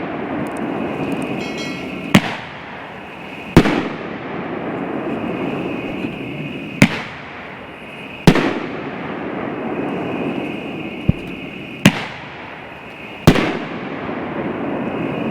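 Elite Fireworks Yanagi Super Rack, a 9-shot 2-inch 500-gram finale rack, firing its shells: six sharp bangs in three pairs about a second and a half apart, the second of each pair the loudest, over a steady hissing wash.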